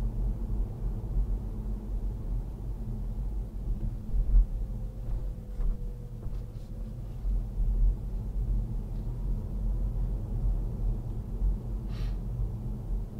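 Steady low rumble of a car being driven, engine and tyre noise heard from inside the cabin, with a short click near the end.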